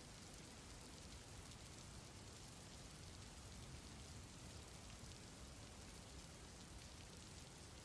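Faint, steady rain: an even hiss with a fine patter of drops, unchanging throughout.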